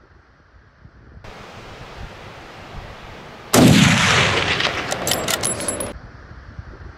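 A single hunting rifle shot about three and a half seconds in, its report ringing on for about two seconds before it cuts off. Faint wind noise comes before it.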